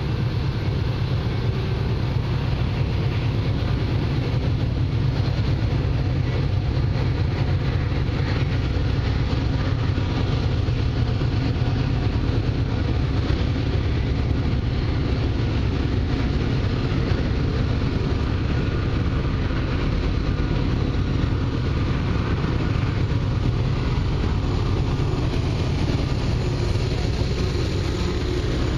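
Steady low rumble of an approaching Canadian Pacific freight train's diesel locomotives, which draw alongside near the end.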